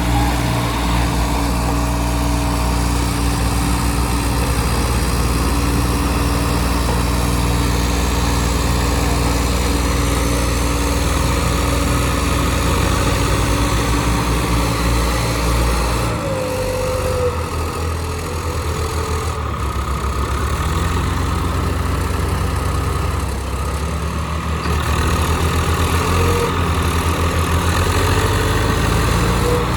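Tractor diesel engine running steadily, its note shifting about halfway through.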